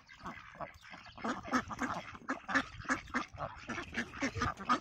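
Domestic ducks quacking in quick, repeated short calls, about three a second.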